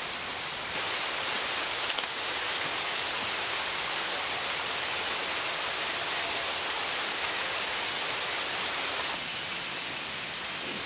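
Steady hiss of rushing water, even and without pitch, stepping up slightly about a second in, with a brief click about two seconds in.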